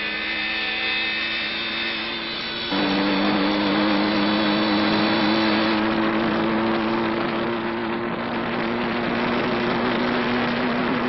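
Cartoon engine sound effect for a speeding motorbike: a steady buzzing drone that gets louder about three seconds in.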